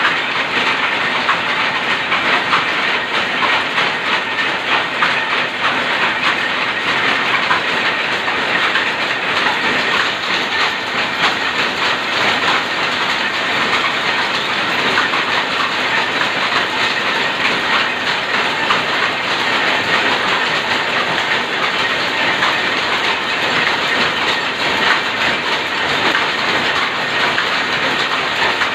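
Shuttle loom converted to a rapier loom running at speed and weaving plain cloth: a loud, fast, steady mechanical clatter of rapid beats.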